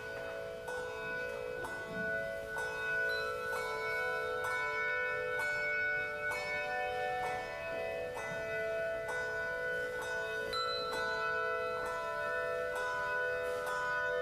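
Carillon bells playing a slow hymn-like melody, about two notes a second, each bell ringing on so the notes overlap.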